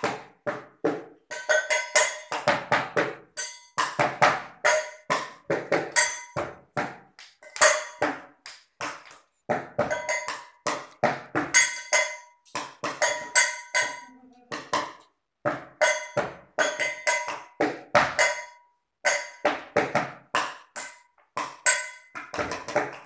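Drumming: a fast rhythmic beat of sharp strikes, many of which ring briefly at a few fixed pitches.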